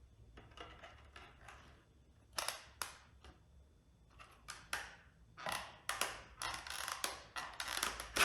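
Short mechanical clicks and clatter, a few at first, then coming thicker and faster in the second half.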